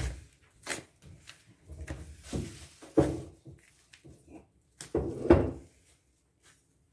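A metal spoon stirring ground walnuts and granulated sugar in a plastic bowl: irregular gritty scraping strokes, with sharper knocks of the spoon against the bowl about three seconds in and again about five seconds in. The stirring stops about a second before the end.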